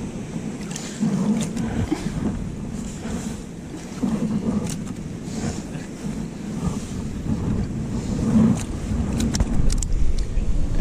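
Wind buffeting the microphone in gusts, over the wash of sea surf on the rocks, with scattered sharp clicks and taps.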